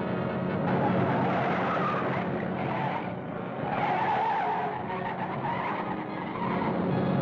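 Truck engine running hard, with tyre screeching swelling twice, on an old film soundtrack.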